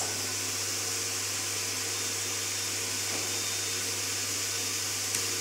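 Suction motor of a screen-printing vacuum table running with a steady hiss and hum, drawing air through the holes in the bed to hold the paper flat. There is a faint click near the end.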